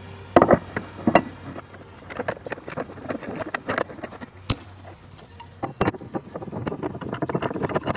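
Irregular knocks and clicks of heavy powder-coated steel bench legs being handled and fitted into the welded steel frame of a shooting-bench top.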